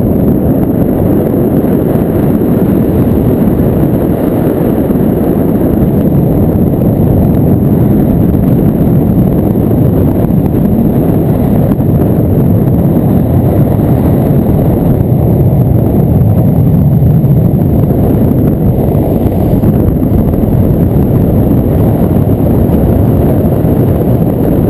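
Wind buffeting a camera microphone during a paraglider flight: a loud, steady low rumble that does not let up.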